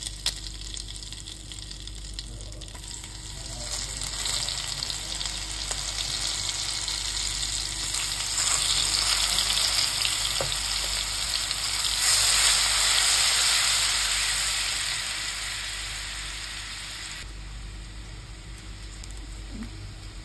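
Chopped garlic sizzling as it fries in hot oil in a stainless steel wok. The sizzle builds to its loudest about two-thirds of the way through, then eases off toward the end.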